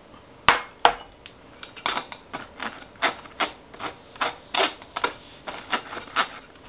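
Metal spoon scraping and rubbing flour through a wire-mesh kitchen strainer, sifting it by hand. It makes a run of short scratchy strokes, roughly two or three a second.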